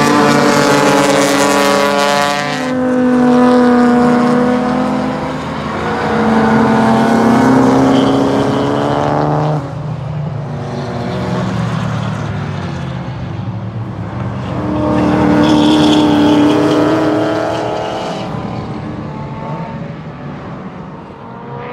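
Race car engines running hard as a string of cars passes one after another, their pitch rising and falling through gear changes, with about four loud swells as groups of cars go by.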